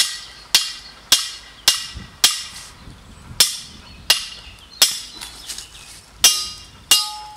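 A hammer strikes the head of a steel angle-iron stake about eleven times, roughly one blow every half-second or so with a short pause in the middle, driving the stake into the ground. The last few blows leave a brief metallic ring from the stake.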